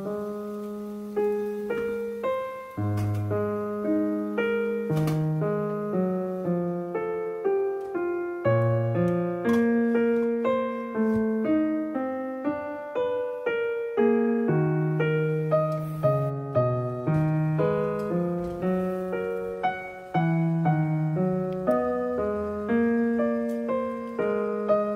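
Background piano music: a gentle melody of single notes, each struck and fading, over a low accompaniment.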